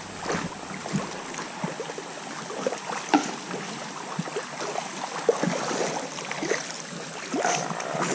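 Creek water sloshing and lapping, with many small, irregular splashes as people move through it.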